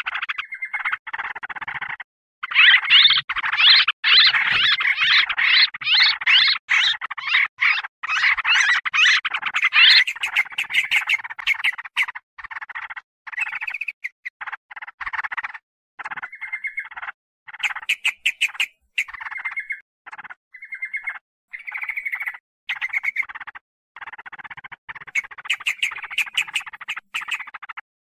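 Yellow-vented bulbuls (trucukan) chattering noisily as a lure call: a dense run of harsh, rapid scolding calls, loudest and unbroken for the first third, then coming in shorter bursts with brief gaps.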